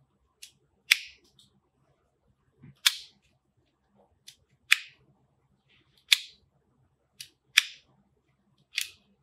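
Sharp plastic clicks from the sliding USB connector of a Sony ICD-UX560F digital voice recorder being pushed out and pulled back repeatedly. There are six loud clicks about every one and a half seconds, most with a fainter click just before.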